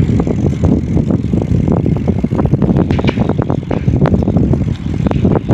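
Wind buffeting the microphone: a loud, rough low rumble with many sharp clicks scattered through it.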